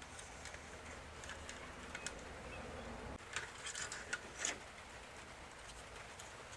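Faint handling of small plastic toy helicopter parts during reassembly: a few light clicks and taps come between about three and four and a half seconds in. A low hum stops about three seconds in.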